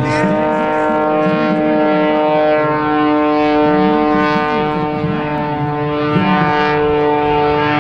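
Modified Pitts Special aerobatic biplane's engine and propeller droning steadily overhead, a loud, even-pitched tone that holds level throughout.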